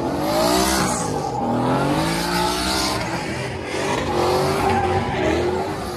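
Pickup trucks doing burnouts: engine revving up and down at high rpm, rising and falling several times, while the spinning rear tyres squeal and hiss on the pavement.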